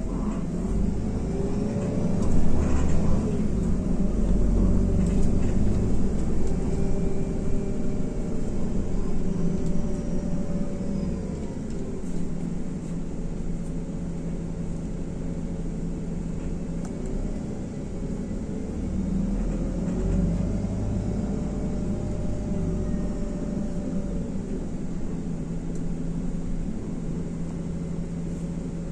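IVECO Crossway LE bus running, heard from inside the cabin: a steady low drone from its Cursor 9 diesel engine and driveline, with a whine that rises and falls twice as it pulls away and slows.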